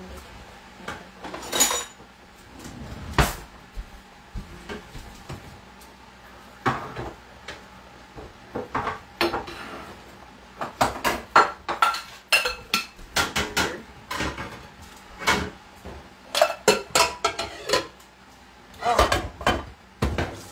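Kitchen clatter of a knife and dishes: sharp clinks and knocks on a cutting board and plates as raw chicken breasts are sliced thinner, scattered at first and then coming in quick clusters over the second half.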